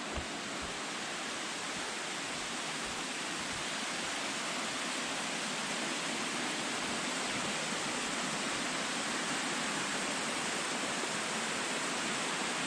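Steady rush of a creek cascade, water pouring over rocks.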